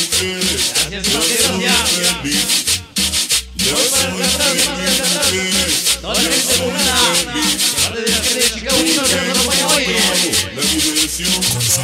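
Dance music with a pulsing bass beat, a busy melody and dense, rapid high percussion.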